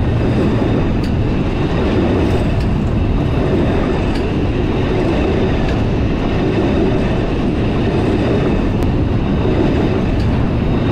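Freight train wagons rolling past at speed on renewed track: a loud, steady rumble of wheels on rail, with a few faint sharp clicks.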